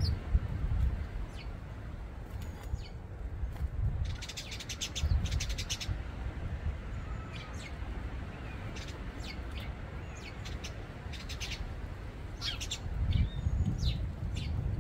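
Garden birds chirping and calling with short high notes, with a fast run of clicking notes about four seconds in. An uneven low rumble runs underneath and swells near the start and near the end.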